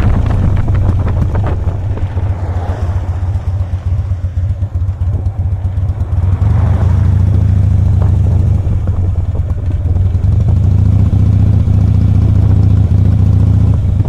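2007 Harley-Davidson Softail Custom's Twin Cam 96B V-twin running as the bike is ridden. It eases off about two seconds in and pulls again from about six seconds on.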